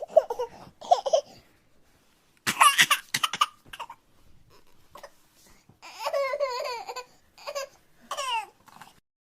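Laughter sound effect: several short bursts of laughing separated by silent pauses, the last one a quick falling giggle.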